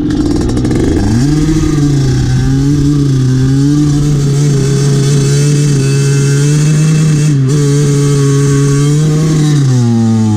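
Derbi Senda two-stroke with a 77cc Stage6 Streetrace kit revved up about a second in and held at steady high revs in a burnout in sand, the rear wheel spinning, then dropping off near the end.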